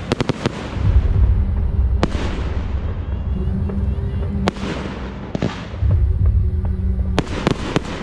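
Firework shells bursting in the air: a quick run of sharp bangs at the start, single bangs every second or two, and a cluster of bangs about seven seconds in, over a low rumble. The display's music plays faintly underneath.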